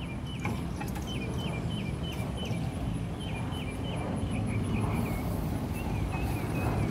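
Outdoor summer ambience: a very high, fast, steady insect trill and runs of four or five short, high, falling chirps, over a low rumble of wind or handling noise on the phone microphone.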